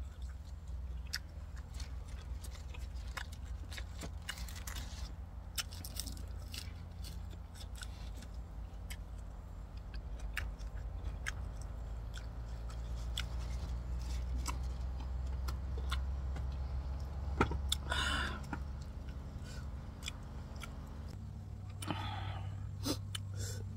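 Close-up chewing of crunchy raw vegetables dipped in chili sauce, with many short crisp crunches scattered throughout, over a steady low hum.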